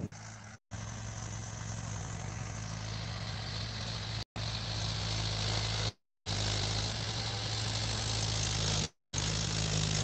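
Mahindra 475 DI tractor's four-cylinder diesel engine running steadily under load as it pulls a tillage implement through the soil. The sound drops out briefly four times.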